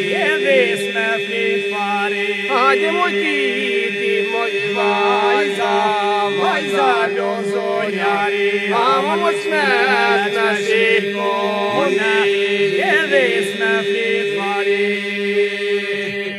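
Albanian folk music with no sung words: a wavering, heavily ornamented melody over a steady low drone.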